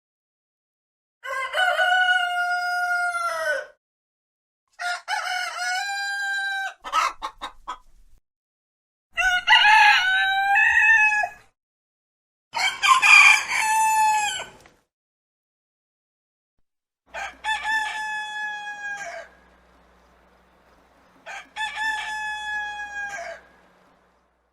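Rooster crowing six times, each crow about two seconds long with a pause between them. A few short, quick calls follow the second crow.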